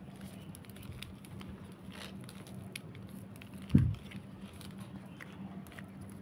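Light rustling and crinkling of a black plastic bag wrapped around an air-layered branch as it is handled among the leaves, with one dull thump a little past halfway.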